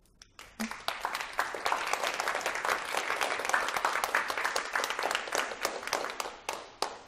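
Audience applauding at the end of a lecture: many hands clapping, building up quickly about half a second in, holding steady, then thinning out and dying away near the end.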